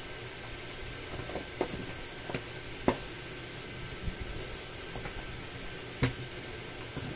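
A few sharp taps and scrapes of kittens' paws on a cardboard box, the loudest about three seconds in and another about six seconds in, over a steady hiss.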